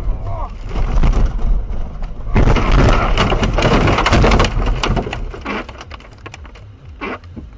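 A car ploughing off the road into deep snow: a loud rushing crunch of snow spraying and pelting against the car, with knocks and rattles, tailing off into scattered clicks and ticks.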